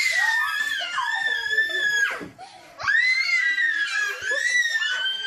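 A girl screaming at a very high pitch: two long screams, the first sliding down and breaking off about two seconds in, and the second starting after a short pause.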